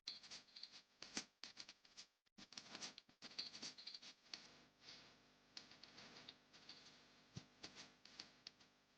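Faint, scattered clicks, taps and light rattles of tools and metal parts being handled while a motorcycle front wheel is refitted, with a few sharper knocks.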